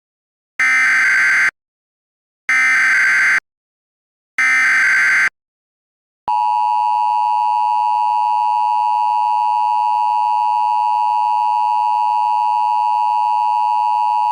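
Emergency Alert System signal: three short screeching data bursts of the SAME header, a second apart, then the long steady EAS attention tone starts about six seconds in, announcing an emergency alert message.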